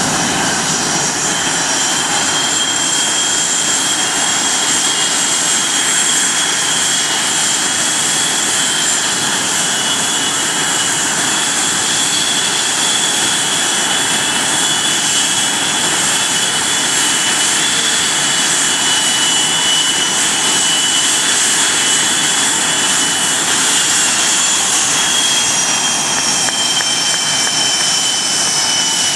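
Blue Angels F/A-18 Hornet jet engines taxiing at low power: a loud, steady turbine whine with two high tones over a rushing roar, the tones sliding slightly lower near the end.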